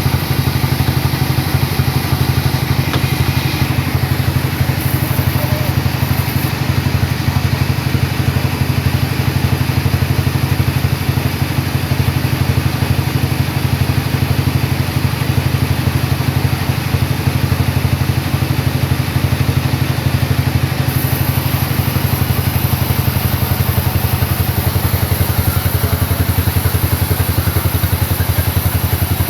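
Sawmill engine running steadily at a constant speed, with a fast, even low throb.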